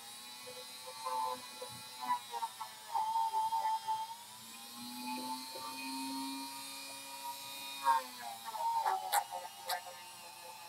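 A small handheld electric motor tool running with a steady whine whose pitch sags and recovers as it is worked, then a few sharp clicks near the end.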